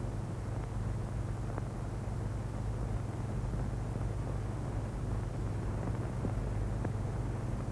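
Steady low hum and hiss of an old film soundtrack, with a few faint clicks.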